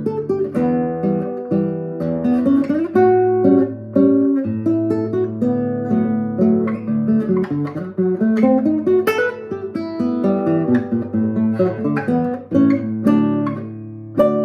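Classical guitar playing a lively Brazilian choro, a quick run of plucked notes and chords. Near the end a chord is struck and left ringing.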